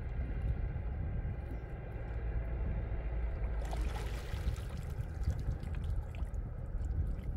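Water splashing about halfway through as a fishing line on a stick is pulled up out of a shallow river, over a steady low rumble.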